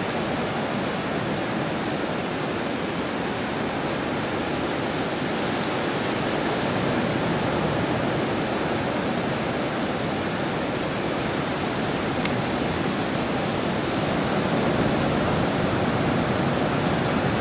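Steady rush of sea water surging over a rocky reef shore, swelling slightly a couple of times.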